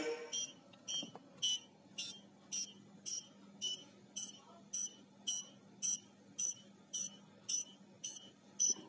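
Electronic prop bomb's buzzer beeping in short, evenly spaced high beeps, about two a second, as its countdown timer runs, over a faint steady hum.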